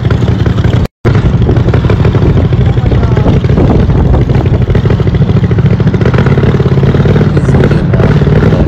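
Strong hurricane wind buffeting a phone's microphone: a loud, steady, low rumble that cuts out for an instant about a second in.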